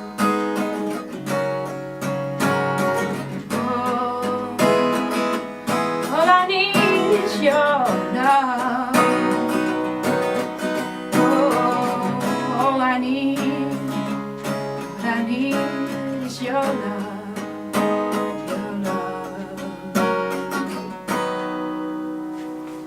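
Acoustic guitar strumming the closing bars of a song, with a voice singing over it in places. Near the end the last chord is left to ring and fade out.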